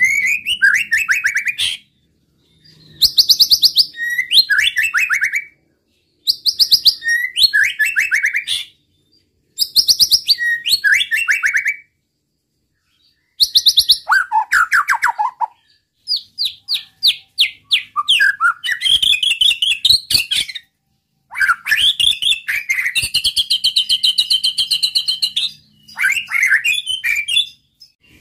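White-rumped shama (murai batu) singing loudly in repeated phrases of about two seconds with short pauses between them. Each phrase opens with a rapid burst of high notes and falls into lower whistled warbles. In the second half the song runs on longer, with a sustained trill.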